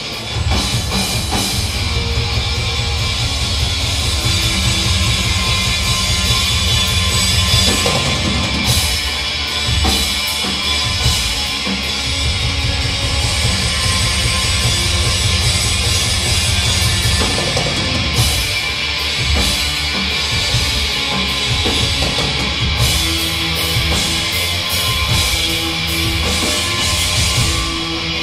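Hardcore punk band playing live: distorted electric guitar, bass and a fast-hit drum kit.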